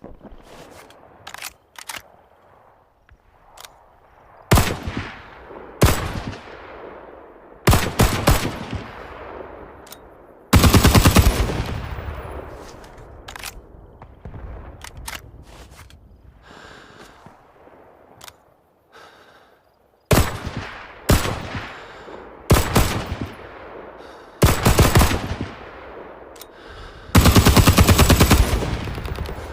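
M1918 Browning Automatic Rifle firing fully automatic .30-06 in about ten bursts, most short and two lasting over a second, each dying away in a long echo. A few faint single cracks come in the opening seconds.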